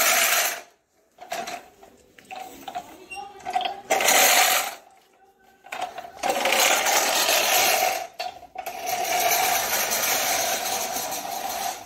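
Manual push reel mower rolled over grass, its spinning cylinder blades cutting as it goes, in several pushes with short pauses between; the longest runs come in the second half.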